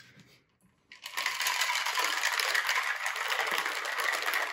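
Ice cubes rattling inside a stainless-steel cocktail shaker as it is shaken. The fast, dense rattle starts about a second in and stops abruptly near the end.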